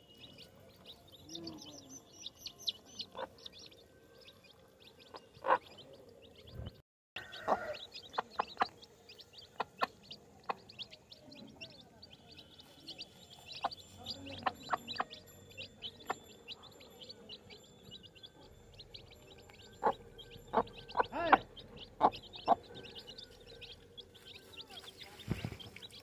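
A brood of baby chicks peeping constantly, many rapid high-pitched cheeps overlapping. Sharp little taps are scattered throughout as the hen and chicks peck grain off the dirt, clustering loudest a few seconds before the end. The sound cuts out briefly about seven seconds in.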